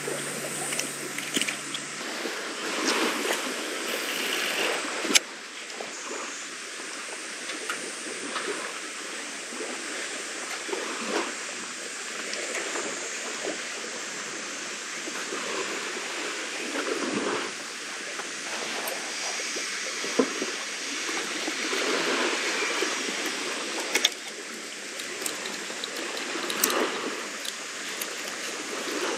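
Steady rushing noise of seawater lapping against a concrete seawall, with scattered sharp clicks of fishing tackle being handled. The loudest click comes about five seconds in, and another near the twenty-four-second mark.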